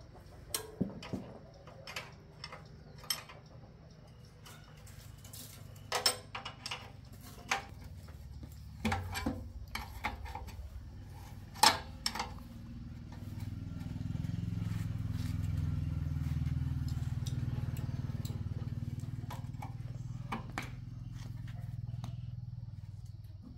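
Sharp metallic clicks and clinks of hand tools working at a bicycle's rear axle. In the second half a low engine hum swells and then fades.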